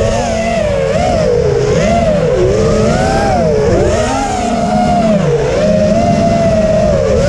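Racing quadcopter's Emax 2205 2600KV brushless motors and Dalprop propellers whining, heard from a camera mounted on the drone itself. The pitch swoops up and down continually as the throttle changes through fast turns.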